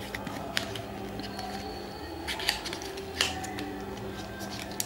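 Small cardboard box being opened by hand: the lid and flaps flexing and rustling, with a few sharp snaps and taps, the loudest about two and a half and three seconds in.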